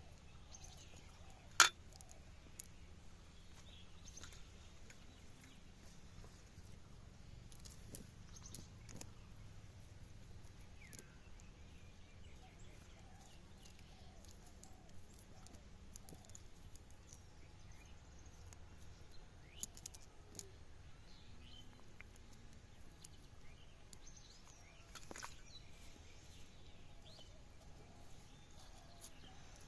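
Faint outdoor ambience with scattered bird chirps and occasional sharp clicks, the loudest about a second and a half in.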